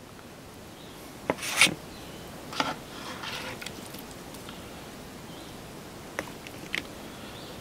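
Serving spoon scraping and tapping against the inside of a cast-iron Dutch oven as food is scooped out: a few short scrapes, the loudest about a second and a half in, and a few light clicks near the end.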